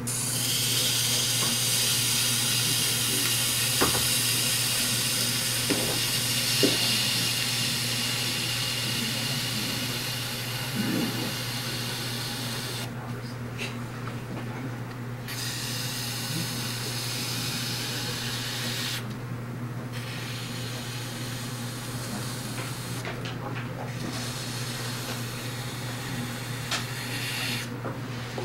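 Metal kidney rib scraping over the surface of a dry, leather-hard stoneware bowl turning on a potter's wheel: a steady hiss that breaks off for a second or two several times in the second half. A steady low hum runs underneath.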